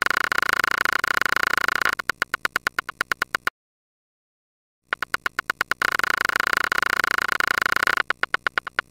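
Electronic buzzing clicks standing for the firing of cochlear nerve fibres. A continuous buzz of rapid clicks slows to about ten clicks a second, stops for over a second, then returns as separate clicks that speed back up into a buzz and slow again near the end. The rising and falling click rate stands for the hair cells raising or lowering the nerve's firing rate as their stereocilia bend.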